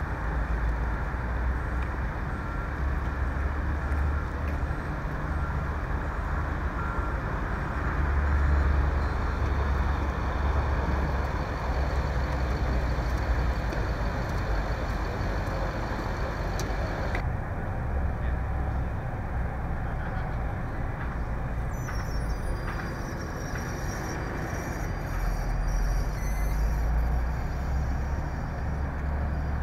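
Idling emergency vehicles: a steady low engine rumble with street noise, and a faint repeated beeping over the first several seconds.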